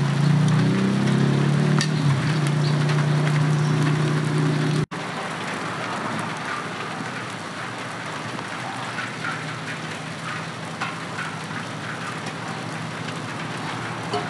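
Steady outdoor hiss, with a low droning hum in the first few seconds that cuts off abruptly.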